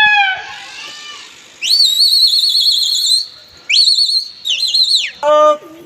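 A shrill, trilling whistle blown three times: one long blast of about a second and a half, then two shorter ones. A man's shouted call comes at the start and another near the end.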